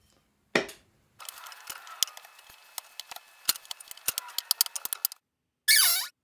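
Small wooden pieces clicking and knocking as they are set down on a workbench, a quick irregular clatter lasting about four seconds. It opens with a single loud knock about half a second in and ends with a short, loud swishing sweep near the end.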